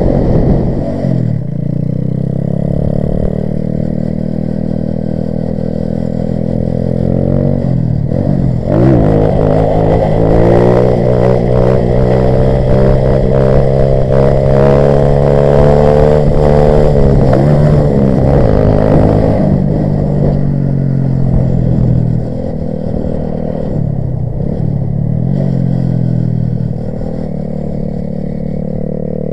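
Grom-clone mini motorcycle's single-cylinder engine under riding load, its revs swinging up and down. The revs drop sharply about a third of the way in, then climb and stay high for about ten seconds while the front wheel is lifted in a wheelie, fall away, and dip once more before settling.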